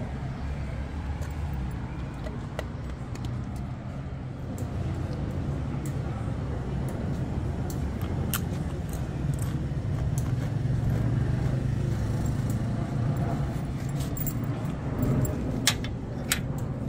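Steady low rumble of street traffic, swelling a little past the middle, with a few sharp clicks near the end.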